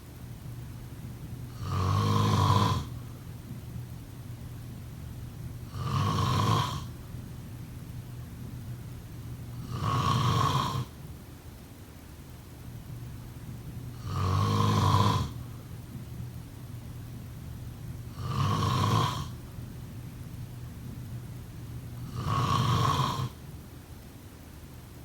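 A person snoring in a slow, regular rhythm: six rasping snores about four seconds apart, each lasting about a second.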